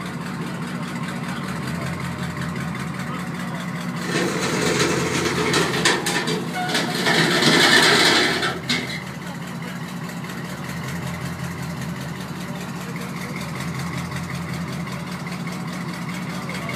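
Steady low drone of the sternwheeler launch's engine running as the boat moves. About a third of the way in, a louder rush of noise with a few sharp clicks lasts about four seconds, then stops and the drone carries on alone.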